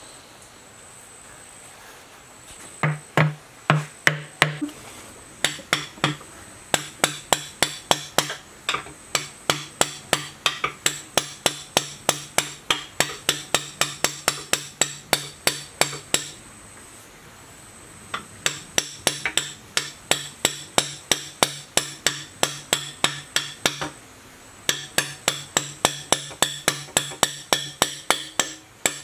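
Hammer blows on metal: a steady run of sharp, ringing strikes about two or three a second, broken by short pauses, the longest about two-thirds through.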